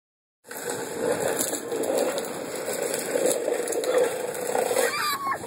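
Small hands rummaging through snack crackers in a stainless-steel bowl: a steady crackling scrape with many small clicks. Near the end a short, high child's voice slides downward.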